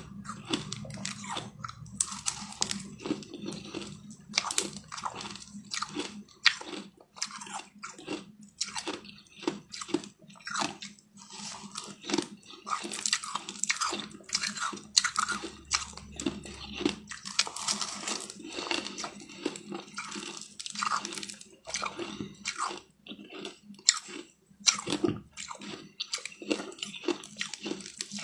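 Crushed ice being bitten and chewed, a rapid, irregular run of crisp crunches and crackles.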